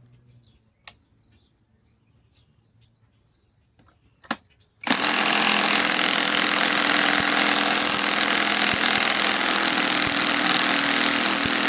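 Cordless Hercules Gen 2 compact impact wrench hammering steadily as it drives a fastener. It starts about five seconds in, after a click and a knock, and keeps going without a break for about seven seconds.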